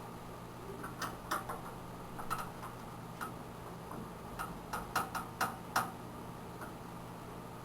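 About a dozen light, irregular clicks and ticks from a screwdriver working the screws of a desktop PC's video card and expansion-slot brackets, over a steady low hum.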